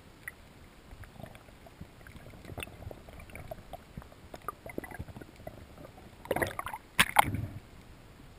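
Underwater ambience picked up through a camera housing: a low background hiss sprinkled with faint clicks and crackles, then a burst of louder sharp clacks and knocks about six to seven seconds in.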